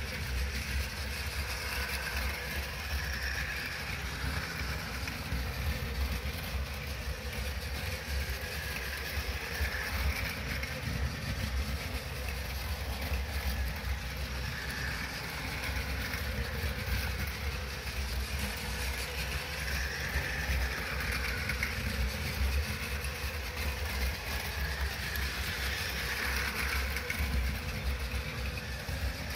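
Battery-powered Plarail toy shinkansen trains, an E4 Max and an E7, running on plastic track: a steady motor whir and wheel rattle that grows louder and softer every few seconds as the trains pass close by.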